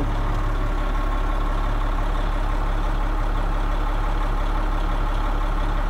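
Detroit Diesel engine of a heavy Oshkosh 4x4 truck idling steadily, heard from inside the cab as a low, even drone.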